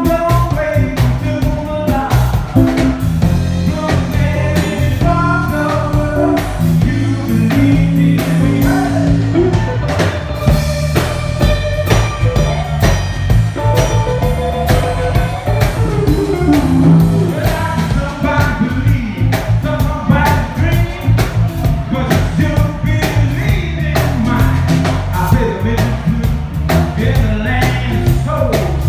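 Live blues band playing: electric guitar, electric bass and drum kit, with a man singing.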